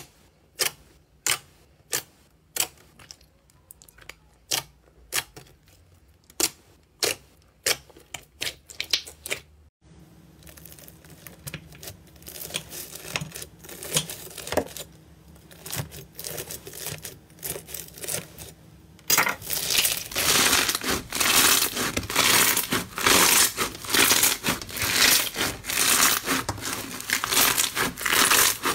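Slime being handled in three parts. First, fingers poke a glossy green slime, each press giving a sharp click or pop, roughly two a second. From about ten seconds in, a blade slices through pink crunchy bead-filled slime with a soft crackle, and from about nineteen seconds hands squeeze that slime in a dense, louder crackling and crunching.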